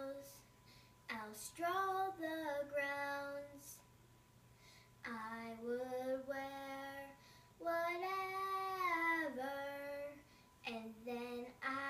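A young girl singing unaccompanied, in four sung phrases with held notes, separated by short pauses for breath.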